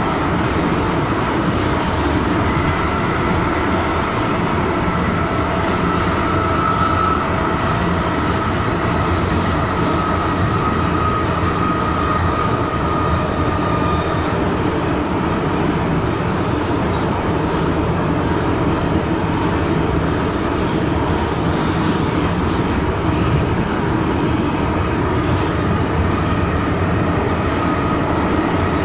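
Inside an MTR M-Train electric multiple unit running at speed through a tunnel: a steady loud rumble of wheels on rails and running gear. A thin high whine rides over it, strongest for several seconds in the first half and returning briefly near the end.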